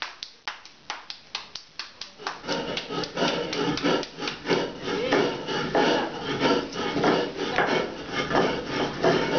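Hands patting corn masa into a tortilla: quick, regular slaps about four a second. After about two and a half seconds it turns into a louder, busier mix of slapping and dough handling.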